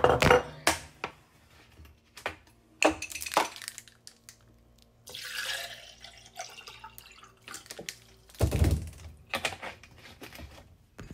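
Water being poured out for a drink, a splashing pour about halfway through, amid several knocks and clinks of the container being handled, with a heavier thunk a little later.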